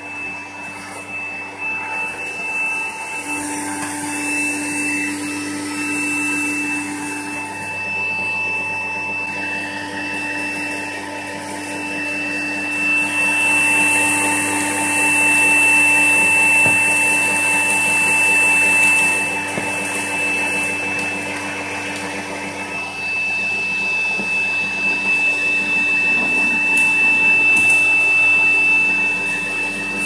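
Vacuum cleaner running steadily, drawing air through a homemade cyclone separator, a steady high whine over the rush of air. It swells a little louder for a few seconds in the middle and again near the end.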